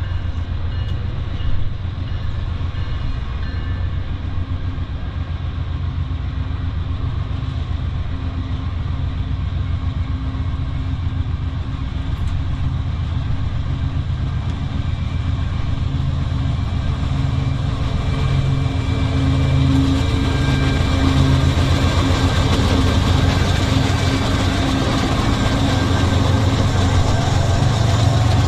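Five-unit lash of diesel-electric freight locomotives running under power as they approach and pass, a steady low engine drone that grows louder in the second half as the units come by.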